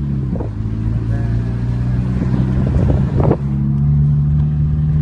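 Car engine running steadily, heard from inside the moving car, with a brief knock about three seconds in, after which the engine's drone rises slightly.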